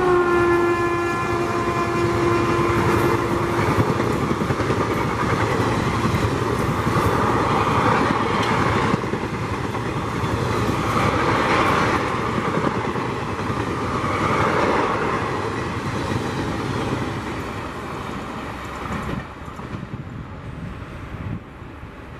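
WAP-4 electric locomotive's horn sounding as it passes at speed, its pitch dropping as it goes by and dying out after a few seconds. The passenger coaches then rush past with steady wheel-on-rail noise and clatter, fading over the last few seconds as the train moves away.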